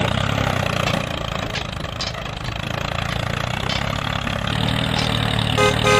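Tractor engine running steadily, a little louder from about four and a half seconds in, with a short pitched tone near the end.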